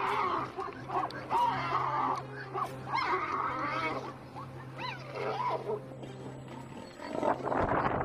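A lioness attacking a zebra: growls and wavering, high animal cries over a steady low hum, then a loud burst of noisy scuffling about seven seconds in.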